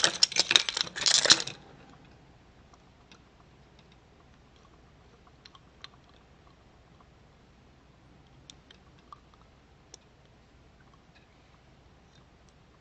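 Handling noise from a plastic liquid-filled keychain and its packaging: a loud burst of clicking and rustling for about the first second and a half, then only faint scattered taps.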